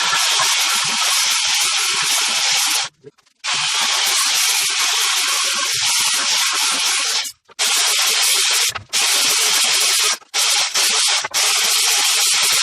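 Sanding: a steady, rasping hiss in several long passes, each cut off abruptly, with short silent breaks.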